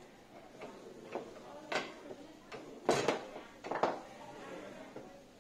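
Foosball game in play: the ball struck by the rod-mounted figures and the rods knocking against the table, a string of sharp clacks with the loudest cluster about three seconds in.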